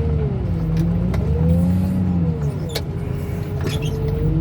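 Forklift engine running and revving up and down in slow swells, with a few light clicks.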